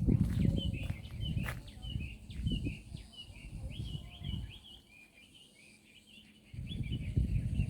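A bird calling in a quick, steady series of short high chirps, about two or three a second, over low rumbling noise that is loudest near the start and again near the end.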